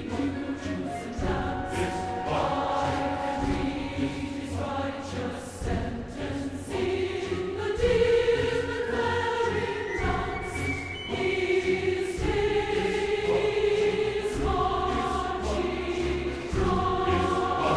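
Background music: a choir singing long held chords that change every second or two.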